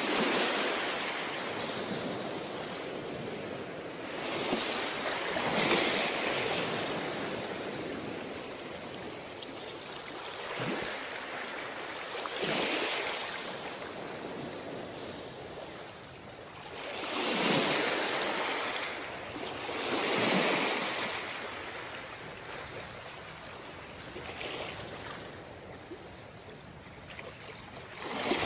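Ocean surf on a beach: waves break and wash up the shore one after another, a surge every few seconds over a steady hiss of foam.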